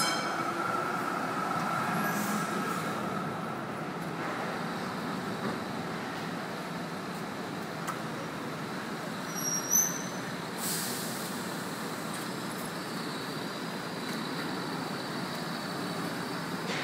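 Steady city street traffic noise, with a short high chirp and then a brief hiss about ten seconds in.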